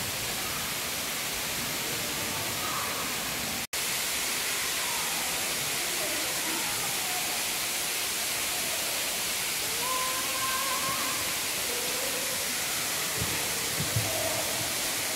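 Steady loud hiss, like rushing water or fan noise, with faint distant voices under it; the sound drops out for an instant about four seconds in.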